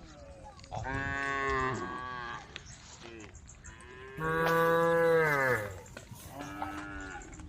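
Cattle mooing: three long calls, the second the longest and loudest, each sliding down in pitch as it ends.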